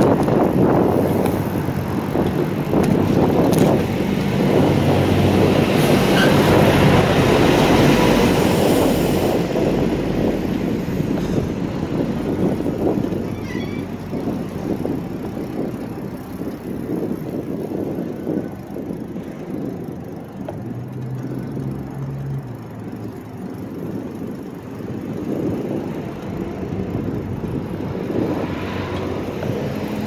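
Wind buffeting the microphone and tyre rumble of an e-bike riding over pavement, loudest in the first ten seconds and easing after that as the ride slows.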